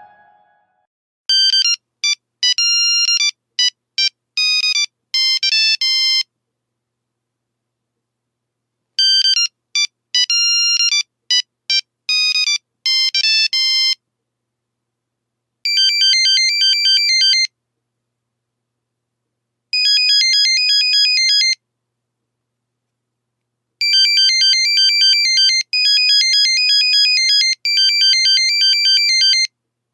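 Nokia 3310 monophonic ringtones beeping. A short melody plays twice with a pause between, then a rapid pattern of alternating beeps comes in three bursts, the last one longer.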